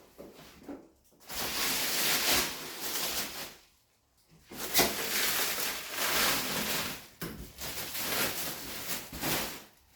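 Plastic packaging wrap being pulled and torn off a new fridge, crinkling loudly in two long stretches, the second about five seconds long.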